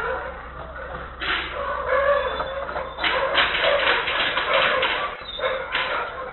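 A rooster crowing, heard through a security camera's microphone with a thin, band-limited sound.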